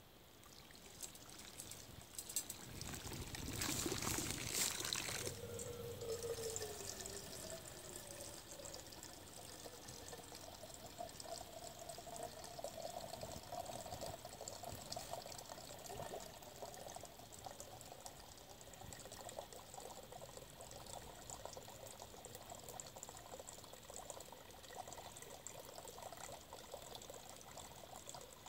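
Water pouring and trickling into a bottle, with a louder splashing rush about three to five seconds in; the pitch of the trickle rises slowly as the bottle fills.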